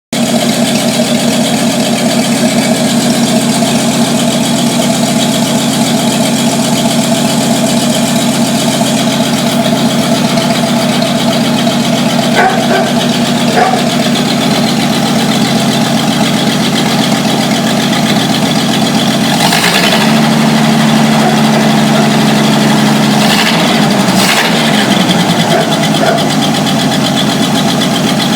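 1949 Studebaker 2R5 truck's flathead six-cylinder engine idling steadily with its vacuum leak freshly fixed. About two-thirds of the way in the engine note shifts and settles at a new steady pitch, with a few sharp clicks.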